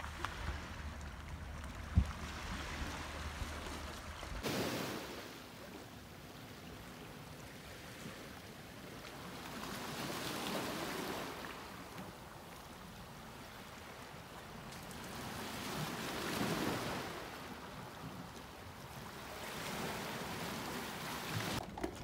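Small sea waves washing in over a pebble and rock shore, swelling and fading every five or six seconds. Wind rumbles on the microphone for about the first four seconds, then stops abruptly.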